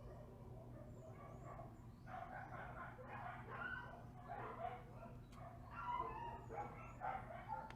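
A dog barking repeatedly over a low steady hum.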